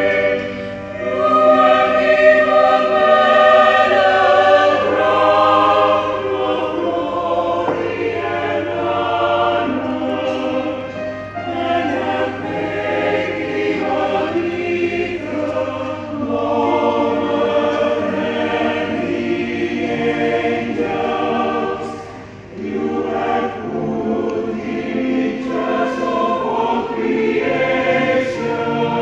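Mixed church choir of women and men singing a hymn together, in sustained phrases with short breaks about a second in and around twenty-two seconds.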